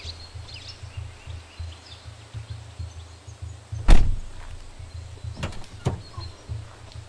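Pickup truck's door slammed shut about four seconds in, a single loud thunk, followed by two lighter clicks over a steady low rumble.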